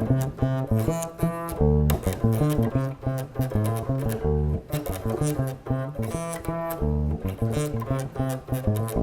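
Electric bass guitar played alone: a busy salsa bass line of quick plucked notes, the basic pattern with extra notes added in between, which changes its swing.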